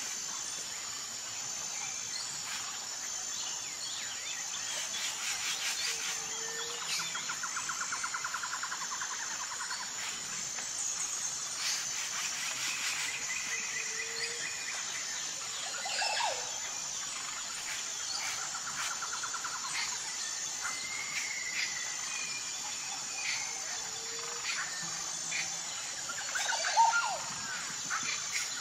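Nature ambience of insects chirping steadily, with scattered bird chirps and trills. A short low note repeats every eight or nine seconds, and a louder call comes near the end.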